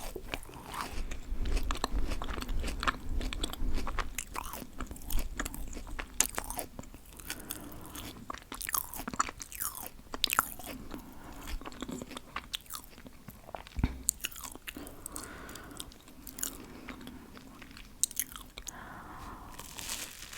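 Close-miked eating of bread spread with peanut butter: bites and chewing with irregular crunching and crackling.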